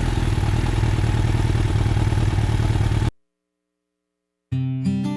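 Small Tiger petrol generator's engine running steadily just after starting, cutting off suddenly about three seconds in. After a second and a half of silence, acoustic guitar music begins near the end.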